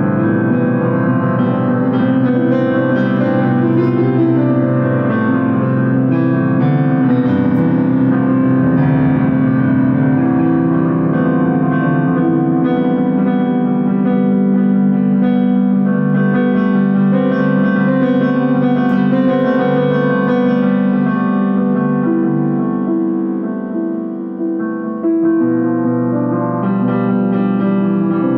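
Music played on a piano-like keyboard, sustained chords and notes, growing quieter for a moment about three-quarters of the way through.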